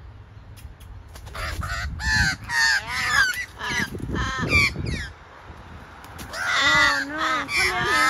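Crows cawing over and over in harsh, rapid runs, the alarm racket of crows mobbing a barn owl; the calls come in two bouts with a short lull about five seconds in.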